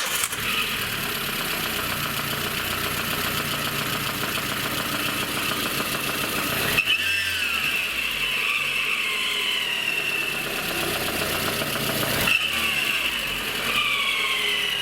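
VAZ Lada Kalina engine running just after being started, with a piercing screech whose pitch slides slowly down. About seven and again about twelve seconds in, the screech breaks with a click and comes back higher.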